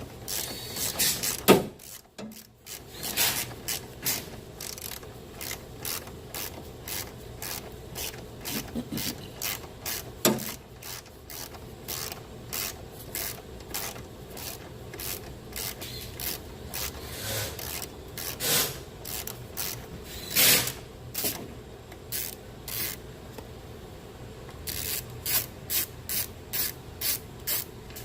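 Hand ratchet and socket working on the strut bolts under a car, a series of irregular metal clicks and scraping, with a more even run of about two clicks a second near the end.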